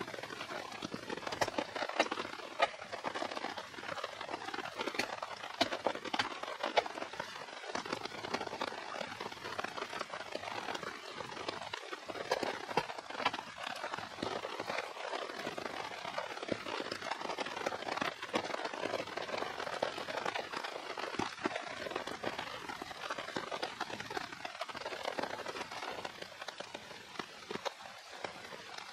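Wood campfire crackling, with many sharp pops and snaps, over a steady hiss of falling rain.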